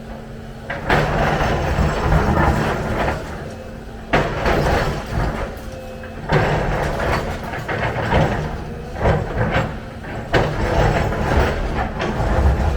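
Volvo EC300 excavator working: engine running under load, with loud scraping and rumbling bursts recurring about every two seconds.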